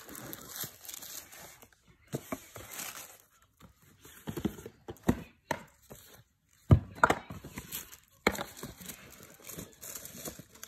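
Packaging being handled and unwrapped: crinkling and rustling of wrapping in short spells, with scattered clicks and knocks, the sharpest knock about two-thirds of the way through.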